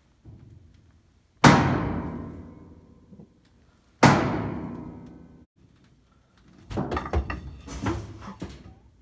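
Two loud bangs on a hard, resonant surface about two and a half seconds apart, each ringing out and fading over a second or two. Near the end comes a burst of lighter knocking and clattering.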